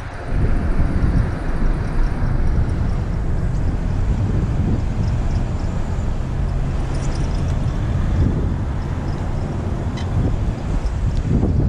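Steady wind buffeting on the microphone with low road rumble while riding an electric bicycle in traffic.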